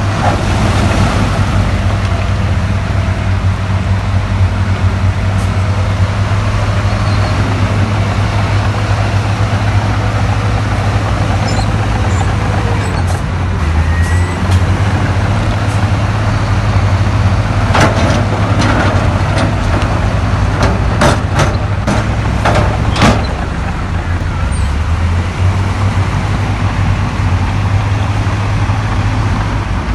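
Heavy diesel earthmoving machinery running steadily under load, a deep constant engine drone. About two-thirds of the way through comes a run of sharp metallic clanks and knocks.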